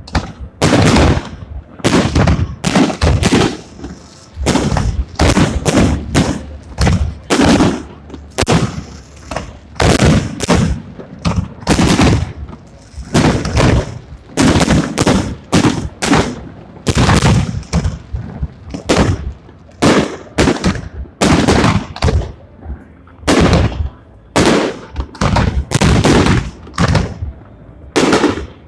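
Fireworks salute: a continuous run of loud shell bursts, about one bang a second with some in quick pairs, each trailing off in a short echo.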